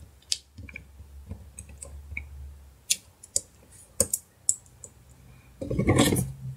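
Light clicks and taps of small phone parts being handled and set down on a table, scattered irregularly, with a louder scuffing sound near the end.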